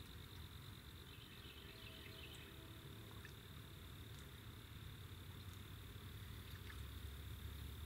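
Faint, steady high-pitched insect trill, with a low rumble beneath it.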